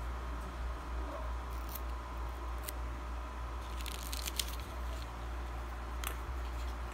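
Small handling sounds of the earbud case and its sealed packaging: a few sharp clicks and a short crackle midway. A steady low hum runs underneath.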